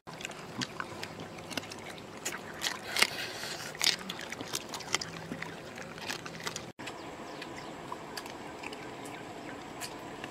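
Several dogs eating from a pile of fried duck meat: irregular wet chewing, crunching and licking clicks, busiest in the first half.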